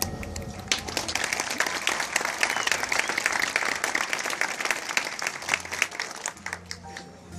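Stadium crowd applauding, a dense patter of many hands clapping that thins out near the end, while a low held note comes in underneath.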